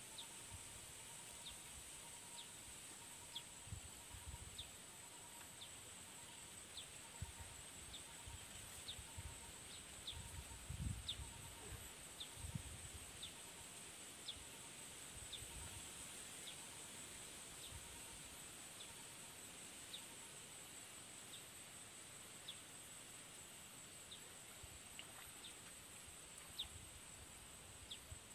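Quiet countryside ambience: a steady high-pitched insect drone, with short high chirps repeating about once a second and a faint pulsing tone underneath. A few soft low thumps come and go, the loudest about eleven seconds in.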